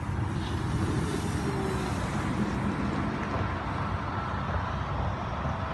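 Wind buffeting the microphone with a steady rumble, over the faint whine of a small RC airplane's brushless electric motor and propeller flying past low.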